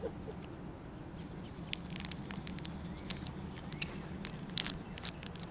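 Scattered light clicks, ticks and scrapes, like small things being handled, over a steady low hum.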